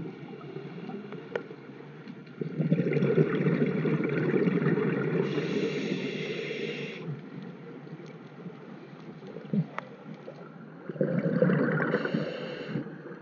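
Scuba diver's breathing through a regulator, heard underwater: a long rush of exhaled bubbles starting a couple of seconds in and another near the end, each with a higher hiss toward its close.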